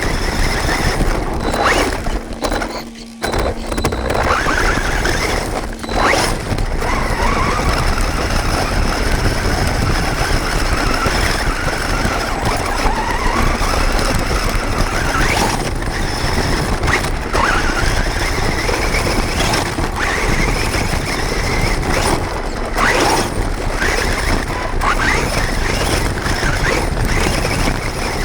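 HSP Brontosaurus RC monster truck's electric motor and drivetrain heard from on board, whining up and down in pitch with the throttle over a constant rattling rush of gears, tyres and chassis. Several short knocks and brief drops in level as it bumps over the track.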